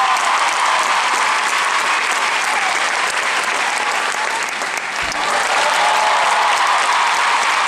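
Large audience applauding continuously, a dense steady clapping.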